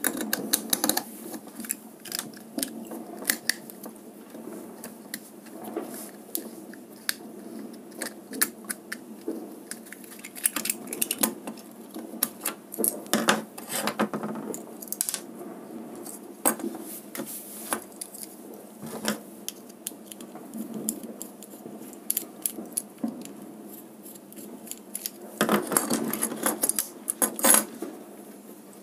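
Irregular small clicks and taps from a three-pin mains plug top being opened by hand with a small screwdriver, its plastic cover and parts knocking on a wooden workbench. A denser run of clatter comes near the end.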